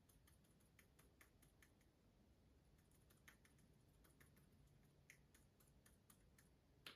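Faint, muffled keystrokes of a Durock Silent Shrimp silent tactile mechanical switch being pressed over and over, several soft ticks a second at an uneven pace. The switch's dampening keeps each press very quiet.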